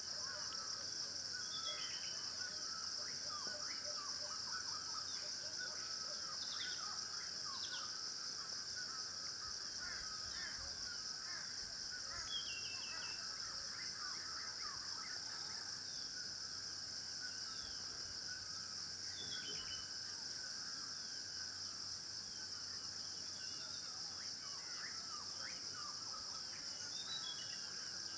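Many small birds chirping and calling in short, quick notes over a steady, high-pitched drone of insects.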